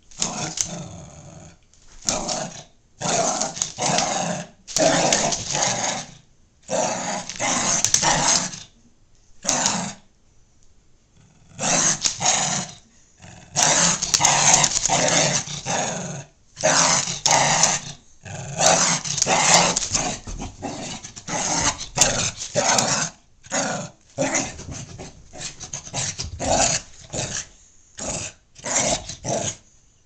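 Small dog growling in play, in repeated bouts of a second or two each with short pauses between and a longer pause about ten seconds in.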